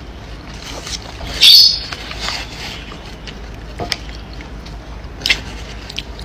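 A person biting into and chewing fried snacks, with one loud, crisp crunch about a second and a half in and a few short, sharp clicks later on.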